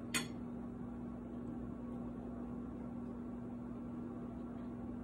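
Room tone: a steady hum with one constant low tone under an even hiss, and a single brief click just after the start.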